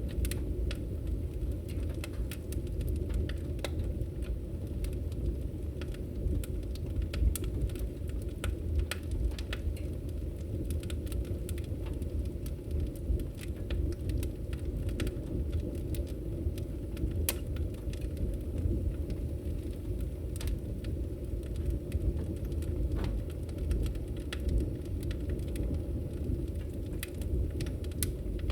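Wood logs burning in a fireplace: a steady low rumble of flames with frequent sharp crackles and pops scattered irregularly throughout.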